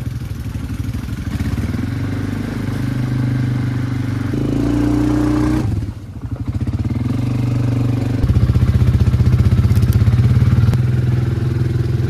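ATV (quad bike) engine running while being ridden. Its pitch rises briefly about four seconds in, the sound dips for a moment near six seconds, and it runs louder from about eight seconds.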